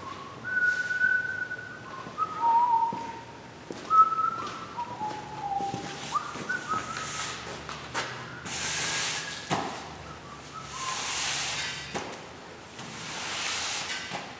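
A man whistling a tune: a string of clear held notes that step up and down, fading out about two-thirds of the way through. A couple of sharp clicks and a few brief hissing noises come in the second half.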